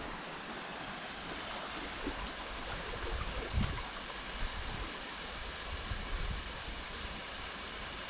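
Steady rushing of a small waterfall and its stream, with a soft low bump about halfway through.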